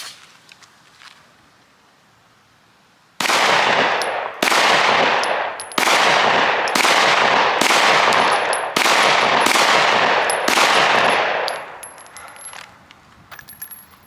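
About eight 9mm pistol shots fired at a steady pace, roughly one a second. Each shot rings out with a long echoing tail.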